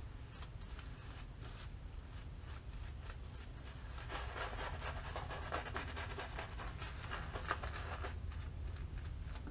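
Shaving brush lathering a face, a quick scratchy swishing of wet bristles and lather on stubble that grows fuller about halfway through.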